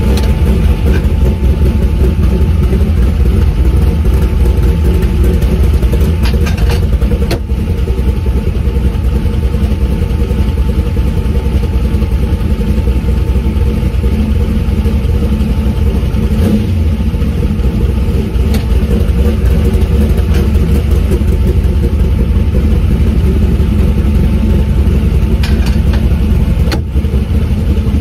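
1932 Ford coupe hot rod's engine, fed by a 750 Holley Brawler carburettor, running steadily and loud at a standstill while the carburettor is being tuned, heard from inside the cabin.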